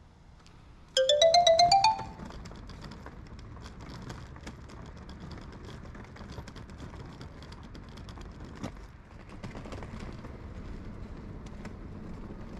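A short, loud rising run of bright chime notes lasting about a second, like a transition jingle. It is followed by outdoor street ambience with distant traffic noise and faint walking footsteps.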